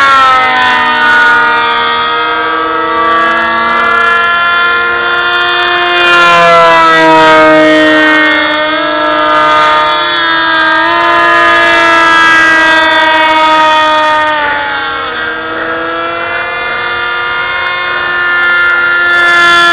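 Motors of two large foam RC F-22 model planes whining, several pitched tones sliding down and back up as the throttle changes and the planes pass overhead.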